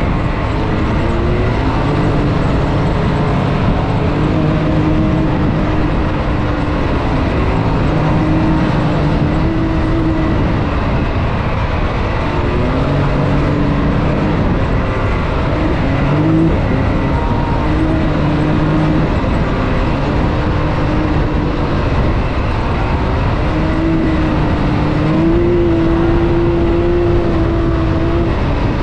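Can-Am Maverick X3 side-by-side driven hard off-road, its engine note rising and falling over and over with the throttle, over a constant loud rush of noise.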